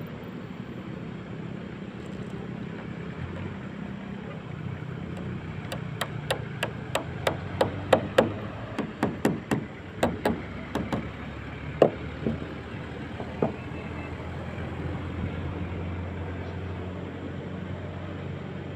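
A run of sharp taps and knocks, about three a second, from hands and tools fastening rope-light wiring along a concrete roof ledge. It starts about six seconds in and stops some seven seconds later, over a steady low background drone.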